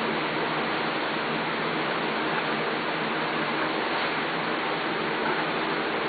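A steady, even hiss with a faint low hum underneath, unchanging throughout.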